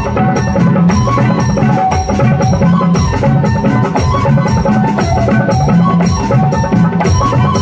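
Live Garhwali folk music: hand drums (dholak and tabla) keep a steady, quick beat under a pitched melody line.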